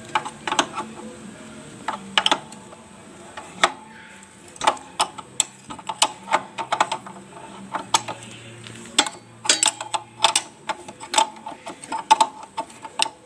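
Steel double-end spanner clicking and clinking against the nut at a motorcycle's rear wheel as it is worked loose, an irregular string of sharp metallic clicks.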